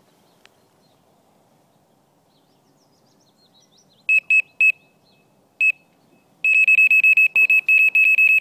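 Electronic carp bite alarm beeping at one high pitch. It gives three short beeps about four seconds in, then one more, then from about six and a half seconds a rapid, continuous string of beeps: the alarm sounding a run, as when a carp takes line.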